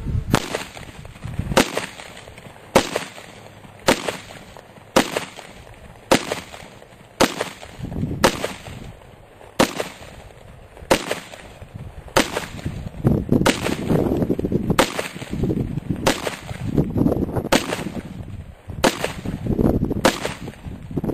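Second-generation Glock 17 9mm pistol firing full metal jacket rounds in a steady string, about one shot a second. Wind buffets the microphone between shots.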